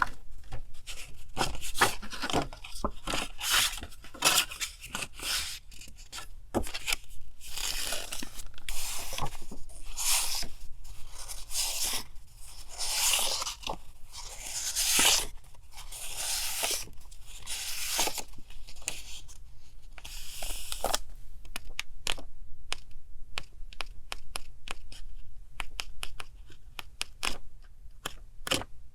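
Paper stationery and its packaging handled close to the microphone: a busy run of tearing, crinkling rustles and small taps, thinning out to scattered clicks and light taps for the last several seconds.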